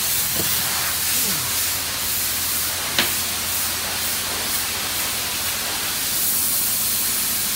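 Pressure washer spraying water: a steady hiss over a low steady hum, with one sharp click about three seconds in.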